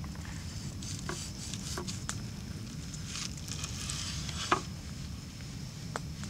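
A cleaver chopping through a roasted corn cob on a wooden board: a few sharp knocks, the loudest about four and a half seconds in, over steady low background noise.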